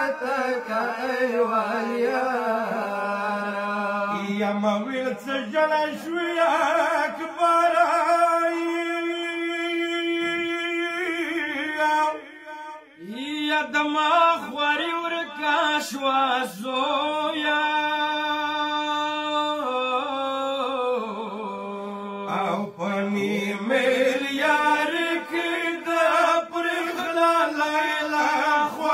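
Men's voices chanting a Pashto noha, a Shia mourning lament, in long drawn-out held notes, with a short break about halfway before the line resumes higher.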